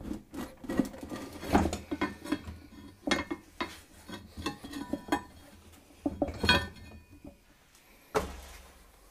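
Small turf tire being worked and pulled off a steel wheel rim on a manual mini tire changer: irregular clanks, knocks and rubbing of rubber and metal, with one heavier thud about eight seconds in.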